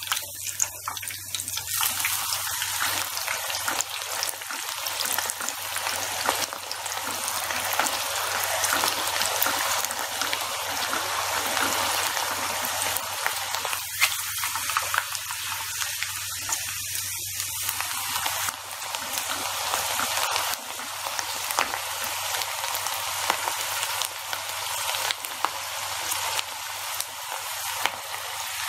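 Soaked chana dal (split chickpeas) deep-frying in hot oil inside a mesh frying strainer: a steady, dense sizzle full of fine crackles, with the dal stirred in the strainer by a spoon.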